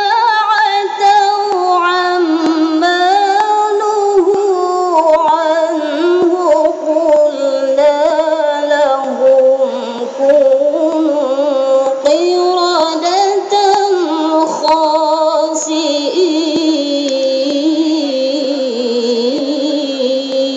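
A woman reciting the Quran in a high voice, in the melodic contest style (tilawah): long held notes that glide and waver through ornamented turns, with brief pauses for breath.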